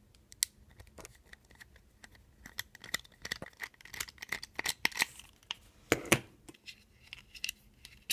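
A small T4 Torx screwdriver turning tiny screws out of a clear plastic GoPro housing: a run of small scratchy clicks and scrapes of the bit in the screw heads and the plastic being handled, with a couple of louder knocks about six seconds in.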